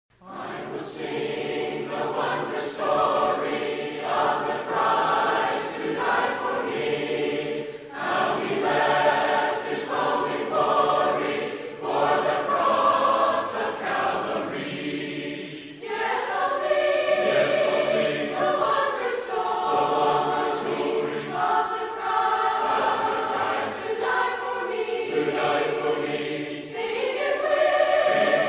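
A choir singing a cappella in several parts, held notes moving in phrases, with brief breaths about 8 and 15 seconds in.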